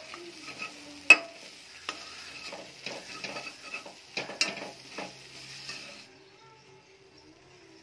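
Onion and spice masala with turmeric sizzling in oil while a spatula stirs and scrapes it, with several sharp knocks of the spatula against the pot, the loudest about a second in; the sizzling drops away about six seconds in. This is the sautéing (bhuna) stage of a curry base.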